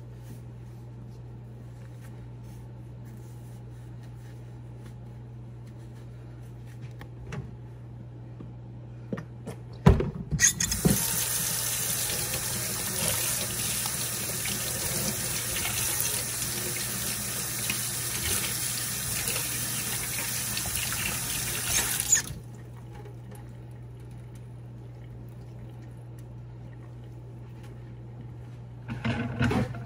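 Kitchen tap running, with hands being washed under the stream: it comes on after a few knocks about a third of the way in, runs steadily for about twelve seconds, then shuts off sharply.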